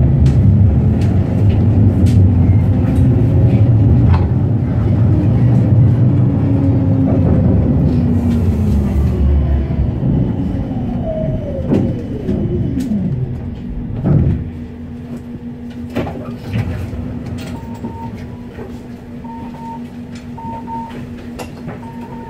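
Electric tram running on rails, then braking to a halt: its motor whine glides down in pitch about halfway through, and a thump follows as it stops. It then stands with a steady hum while short beeps repeat about every second and a half near the end.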